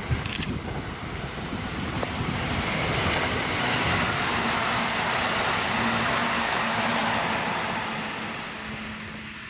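A vehicle passing by, its noise rising to a peak and fading over several seconds, with wind buffeting the microphone at the start.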